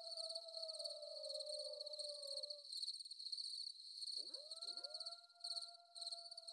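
Crickets chirping in a steady, pulsing high trill, with faint long howls over them: one holds and fades out near the middle, and new ones slide up and hold about four seconds in.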